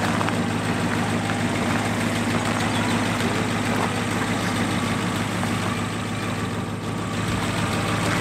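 A car engine idling steadily with an even, low hum.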